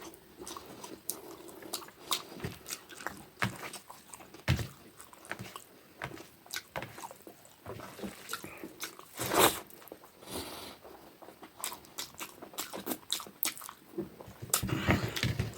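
Close-miked chewing and mouth noises of a person eating: irregular wet clicks and smacks, with one louder smack a little past halfway.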